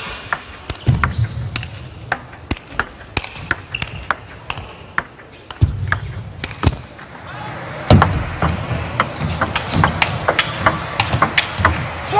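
Table tennis rally: the ball clicking sharply off the paddles and the table, several strokes a second in quick alternation. Crowd noise in the hall swells in the second half of the rally.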